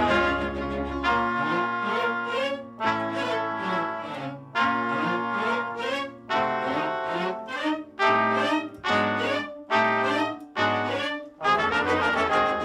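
Brass-led background music score in short, punchy phrases with brief breaks between them, changing to a smoother passage near the end.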